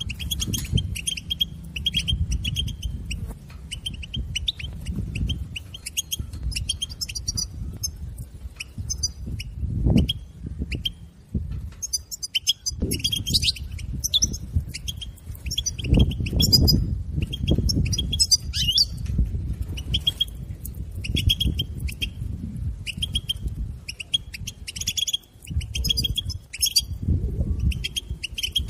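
European goldfinch twittering: rapid runs of short, repeated chirping call notes, the 'batbata' twitter played to stir a caged goldfinch into song. An irregular low rumble runs underneath.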